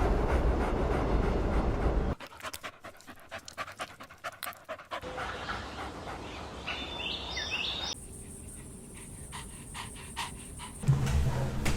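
Small puppies panting, heard across several short cuts, the breaths coming as quick repeated puffs. A brief high-pitched sound occurs about two-thirds of the way through.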